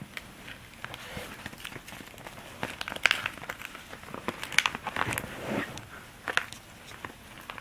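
A child's palm-leaf conical hat (nón) crinkling and crackling as a dog handles it, in irregular sharp crackles, loudest about three seconds in and again around five seconds in.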